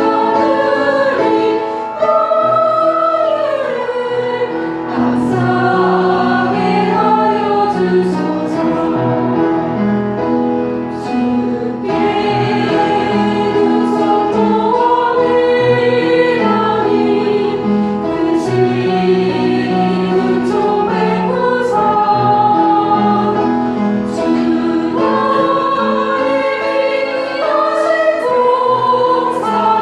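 Church choir singing a hymn in several parts, with sustained, slowly moving chords.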